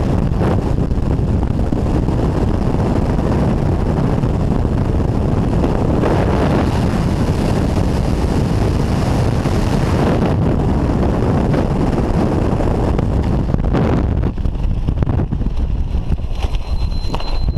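Skydiving freefall wind rushing loudly over a helmet-mounted camera's microphone. It eases and turns gusty near the end as the parachute opens, and a faint steady high whistle comes in at the very end.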